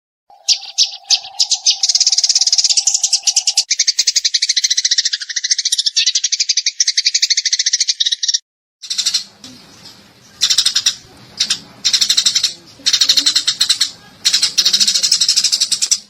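Eurasian tree sparrows chirping in rapid, unbroken chatter, with a steady low tone underneath for the first few seconds. After a brief break about eight seconds in, the chirping comes in separate bursts of about a second each over background noise.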